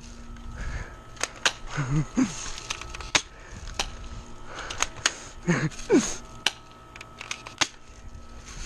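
Airsoft guns firing: a dozen or so sharp, irregular pops scattered through the exchange of fire.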